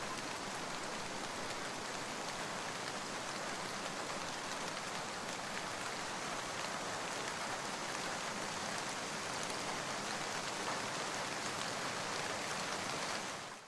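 Steady rain, an even hiss of falling rain with fine scattered drop patter, fading out quickly at the very end.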